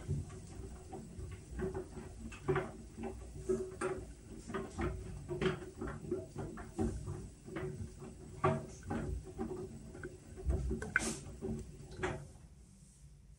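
Whirlpool washing machine running its Steam Refresh cycle: a low motor hum with irregular light clicks and taps, which stops about twelve seconds in.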